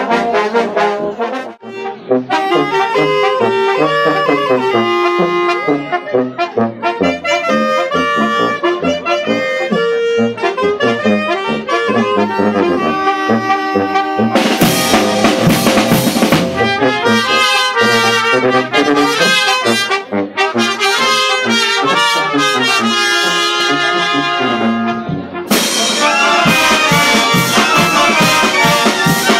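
Brass band with trumpets, trombones and tuba playing over snare drum, hand cymbals and bass drum. The music grows louder and busier about halfway through and again near the end.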